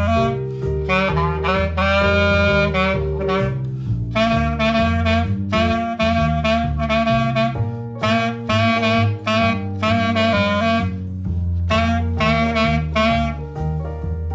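Jazzy instrumental music: a reed instrument plays the melody in short and held notes over a bass line and light percussion.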